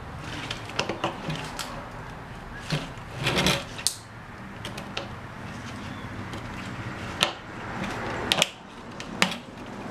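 Scattered knocks, clicks and scrapes of a homemade gasoline vaporizer canister being handled as its lid is worked loose, with a few sharper clacks in the second half.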